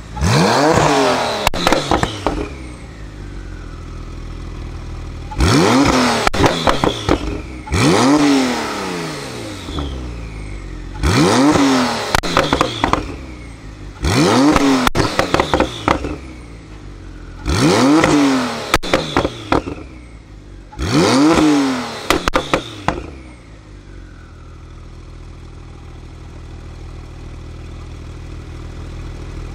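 Tuned Porsche 991 Turbo S twin-turbo flat-six, stationary, revved seven times in short blips about every three seconds, each falling back with crackles and pops on the overrun. It then settles to a steady idle for the last few seconds.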